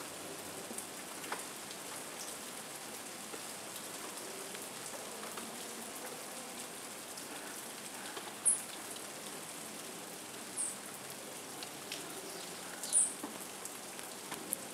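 Steady hiss and patter of falling water drops on leaves and branches. Three short, very high chirps from a small bird come in the second half.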